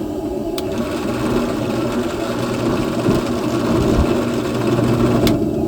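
Electric drill with a 5/16 bit boring a rivet hole through a mild-steel tong blank, starting about half a second in and stopping near the end with a click. Under it, the steady roar of the propane forge burner.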